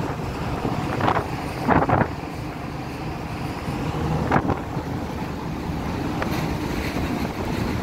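Gale-force wind buffeting the microphone in uneven gusts, with sharper blasts about one, two and four and a half seconds in.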